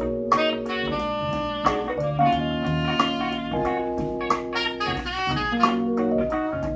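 1970s Ultralinear M15 two-way bookshelf speakers, with a 4.5-inch woofer and a 1-inch tweeter, playing an instrumental track with guitar and horns over a steady beat. The owner finds their sound severely lacking in bass.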